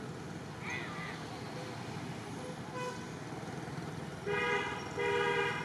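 Two short toots of a vehicle horn, one right after the other near the end, over steady outdoor background noise.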